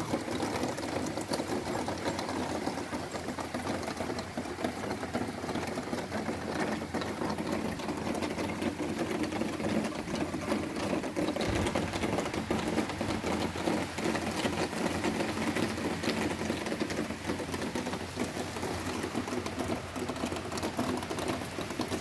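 Heavy rain in a storm: a dense, steady patter of drops.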